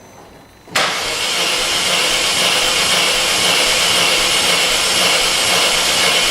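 Vauxhall Corsa VXR engine turned over on its starter motor, starting suddenly about a second in and running steadily, for a compression test on cylinder 4, which reads only 65 to 70 psi.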